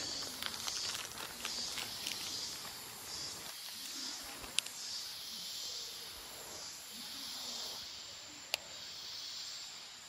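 Forest insects buzzing in a high, hissing chorus that swells and fades every second or two. Footsteps crunch on leaf litter at first, and two sharp clicks come about midway and near the end.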